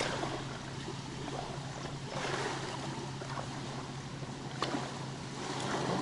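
Steady outdoor water-and-wind noise with a low, even hum underneath and a few faint clicks.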